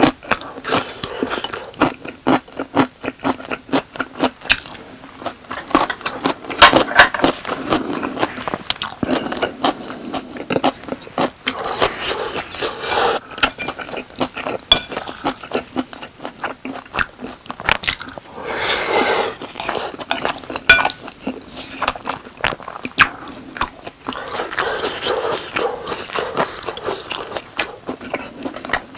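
Close-miked eating sounds: biting and chewing boneless chicken and rice, with dense irregular wet clicks and smacks, and now and then a scrape of a utensil against the dish.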